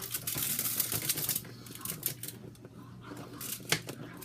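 Aluminium foil crinkling with light clicking and clatter on a foil-lined baking sheet as pork chops are shifted to make room: a dense crackle for the first second and a half, then a few separate sharp clicks.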